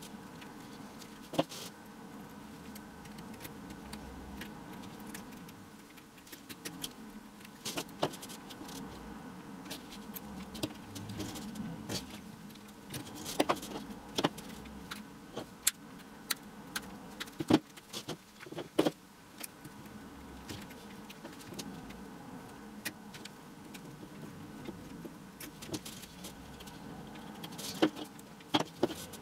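Chicken wire being handled and worked with pliers: scattered sharp metallic clicks and rattles of the wire mesh over a low steady hum.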